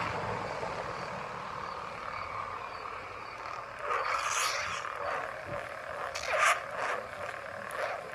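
Lightsaber sound-board hum from a Saberforge Arbiter hilt's speaker, steady and buzzing. It swells into swing sounds as the blade is spun, about four seconds in and again, loudest, just after six seconds.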